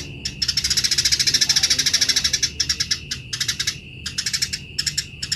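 Eurasian tree sparrows giving a harsh, fast chatter of fighting calls. The rapid chirps run in a dense stretch from about half a second in to two and a half seconds, then come in short bursts with brief gaps.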